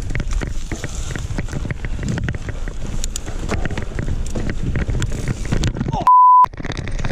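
Mountain bike rolling fast over a dirt trail, with wind buffeting the microphone and the bike rattling and clicking over bumps. About six seconds in, a short, steady beep replaces all other sound for under half a second: a censor bleep.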